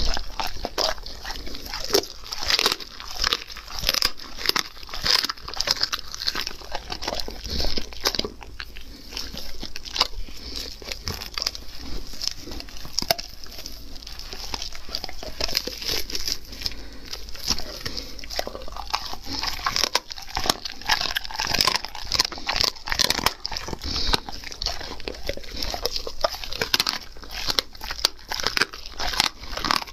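A German Shepherd biting, tearing and chewing a roasted leg of meat on the bone, picked up close by a microphone. It makes a constant run of wet, irregular crunches and smacks.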